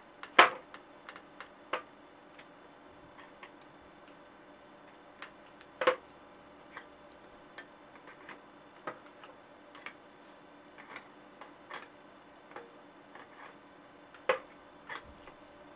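A wrench clicking and clinking on the steel spindle of a pedal as the pedal is unscrewed from a one-piece bicycle crank. The sharp metallic clicks come at irregular intervals, with louder clanks about half a second in, around six seconds and near the end.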